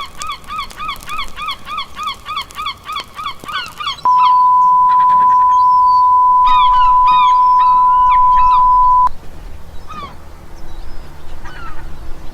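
Rapid repeated bird-like calls, about four or five a second, for about four seconds. Then a loud, steady beep tone holds for about five seconds, with a few more calls over it. A few faint scattered chirps follow.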